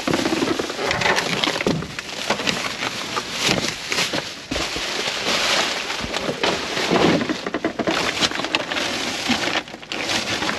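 Plastic bags and food packaging crinkling and rustling, with cardboard boxes shifting, as gloved hands rummage through discarded groceries in a dumpster. A steady crackle with many small sharp clicks.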